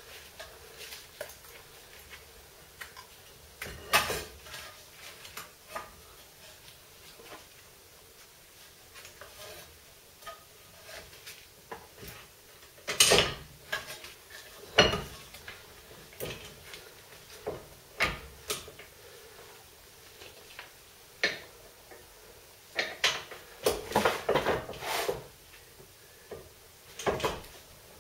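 Irregular metallic clinks and knocks of a VW T25/T3 front brake caliper being worked back over the brake disc by hand, with a quick run of clanks near the end.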